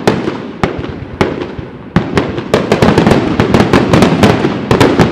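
Aerial fireworks bursting: a few single bangs about a second apart, then from about halfway a dense run of rapid bangs and crackling.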